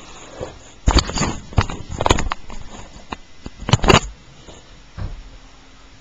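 Small plastic toy figures being handled on a play set, giving clusters of sharp clicks and clatters. The loudest come about one second in and again near four seconds.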